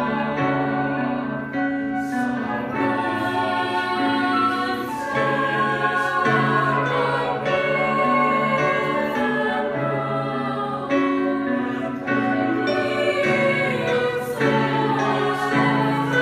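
Mixed high school choir of boys' and girls' voices singing a slow contemporary choral piece, holding sustained chords in harmony that change every second or two, in a stone chapel.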